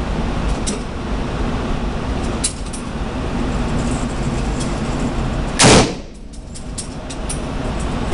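One loud gunshot about two-thirds of the way in, ringing briefly off the concrete of an indoor range, over a steady background rumble. A few faint sharp clicks come before and after it.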